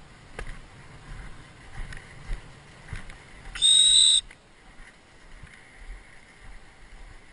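A single steady, high-pitched blast on a dog-training whistle, about two-thirds of a second long, comes about three and a half seconds in. Low wind rumble on the microphone is heard throughout.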